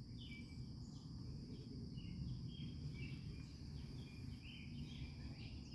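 Faint outdoor ambience: birds chirping in short, repeated notes over a steady high insect drone, with a low rumble underneath.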